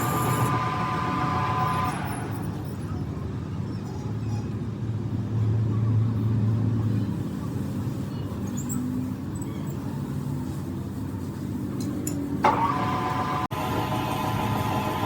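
Steady low mechanical rumble of running machinery, with a high whine at the start that returns after a sudden cut near the end.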